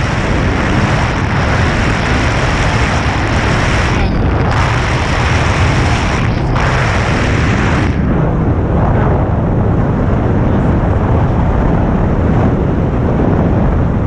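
Airflow from a paraglider in flight buffeting the microphone of a pole-mounted camera: a loud, steady rumbling rush. Its hiss drops out briefly twice in the middle and eases off after about eight seconds.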